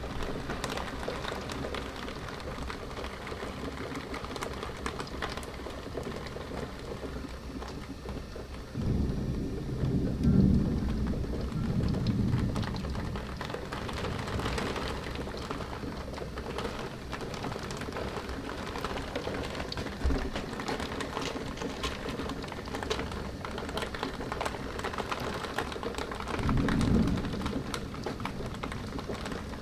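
Steady rain during a thunderstorm, with thunder rumbling twice: a long low roll starting about nine seconds in, and a shorter one near the end.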